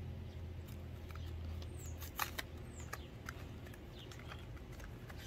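A cardboard Pocky box being opened by hand: a run of small clicks and crinkles, with a cluster of sharper snaps a little over two seconds in.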